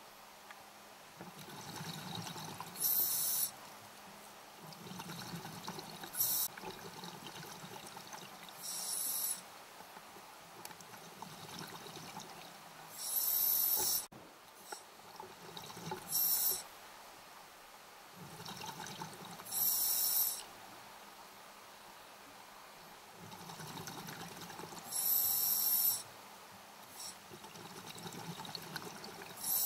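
Scuba diver breathing through a regulator underwater: a softer rush of inhaling, then a short loud burst of exhaled bubbles, repeating every three to five seconds.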